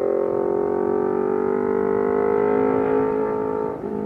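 Sport motorcycle engine pulling under acceleration, its note rising steadily, then a short break and a drop in pitch near the end as the rider shifts up a gear.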